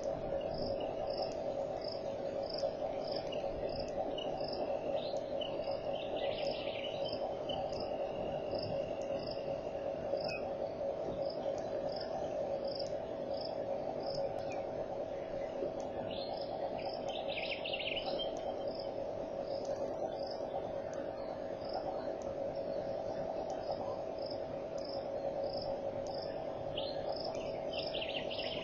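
Steady chorus of insects, with a high chirp repeating two to three times a second throughout. A few short bird calls come in, around a quarter of the way in, past the middle, and near the end.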